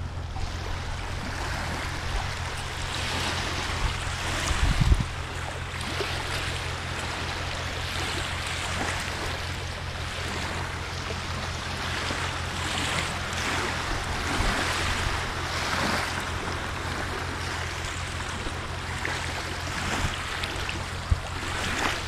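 Small lake waves lapping and washing against the shore, swelling and fading every second or two, with a steady wind rumble on the microphone. A brief, louder buffet of wind comes about five seconds in.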